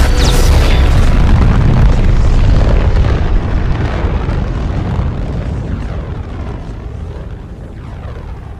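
Film sound effect of a huge energy blast: a deep, sustained boom and rumble that stays loud for about the first three seconds, then slowly dies away.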